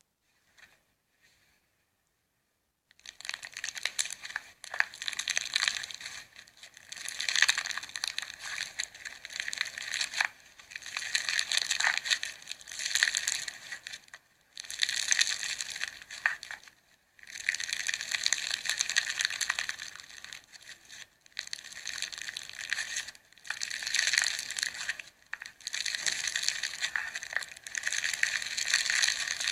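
Slime being squeezed and pressed by hand, a dense crackling that starts about three seconds in and comes in stretches with short pauses.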